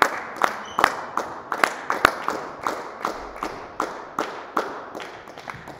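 Steady rhythmic hand clapping, about two and a half claps a second, each clap ringing in the large sports hall; the claps thin out near the end.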